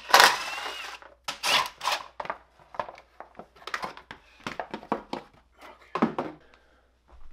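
Plastic front fender of a dirt bike being worked loose and pulled off between the fork legs: a loud scrape with a short squeak in the first second, then a string of clicks and knocks as the plastic and tools are handled.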